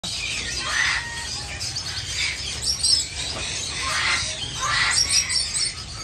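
Many caged birds chirping and chattering at once in a dense, overlapping chorus of short high calls, with louder flurries every second or so.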